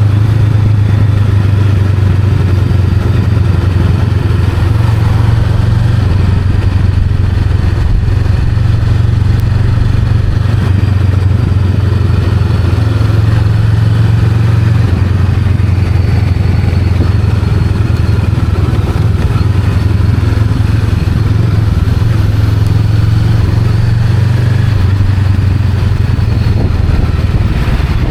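Honda Rebel 500's parallel-twin engine running steadily under way, its low pitch shifting only slightly a few times.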